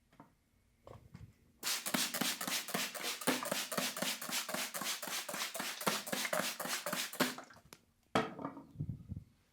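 Barber's hands striking quickly and evenly in massage tapping, about seven strikes a second for some six seconds, with a few looser strikes near the end.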